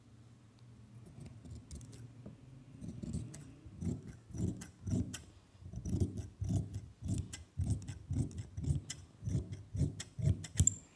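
Large steel tailor's shears cutting through dress fabric, one snip about twice a second with the blades clicking shut on each stroke, faint at first and louder from about three seconds in.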